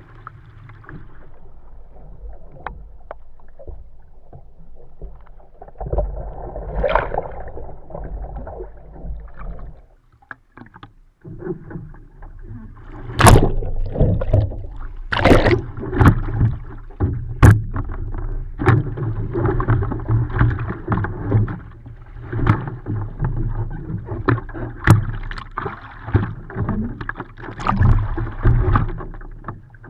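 Sea water splashing and sloshing around a Fenn Bluefin S surfski under paddle strokes. Past the middle, a remount drill brings a run of loud splashes and knocks, with water washing over and under the hull, before steady paddling splashes resume.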